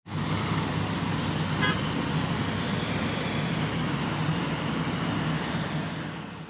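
A heavy diesel engine running steadily, with a brief high tone about a second and a half in. The sound fades out at the end.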